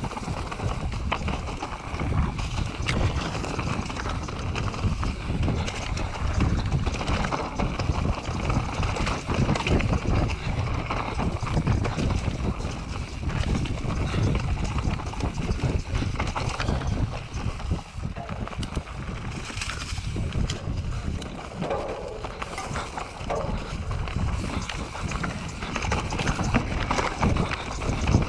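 Cube Stereo 150 full-suspension mountain bike riding down a rocky dirt singletrack: tyres crunching over stones and roots and the bike rattling and clattering with every bump, over a steady rumble of wind on the microphone.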